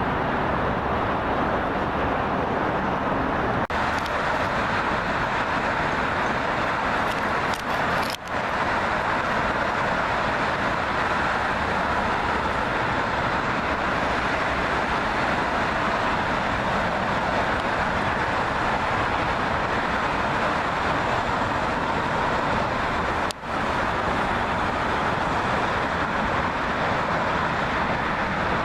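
Steady wash of road traffic noise, broken by three brief drop-outs.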